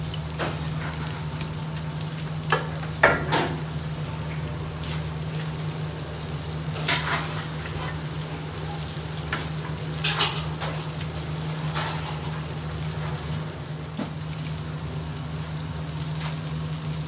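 Beef burger patties sizzling steadily in frying pans over a gas burner, under a constant low hum. A few short sharp cracks stand out, the loudest about three seconds in and others near seven and ten seconds.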